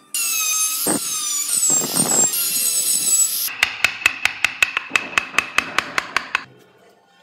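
A power tool whines and grinds at a high pitch for about three and a half seconds. Then comes a fast even run of light, ringing taps, about six a second, as a chisel is struck to carve out the grille of a wooden model car.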